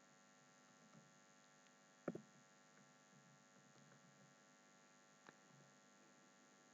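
Near silence: a faint steady electrical hum, with one faint click about two seconds in.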